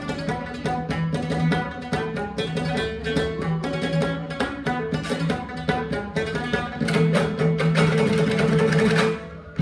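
Instrumental background music with a steady drumbeat over sustained pitched tones, dipping briefly just before the end.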